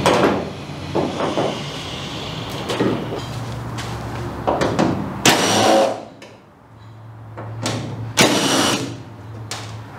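Cordless drill-driver run in several short bursts, driving screws along the edge of a fiberglass reverse scoop into a car bonnet.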